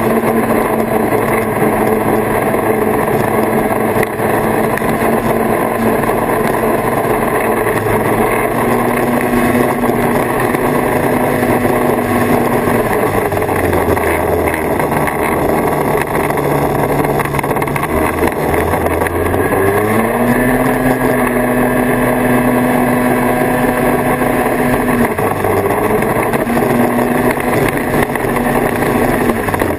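1979 Kawasaki Invader 440 snowmobile's two-stroke engine running at a steady cruising speed. It eases off about 13 seconds in, revs back up with a rising whine around 20 seconds, and dips briefly again near 25 seconds.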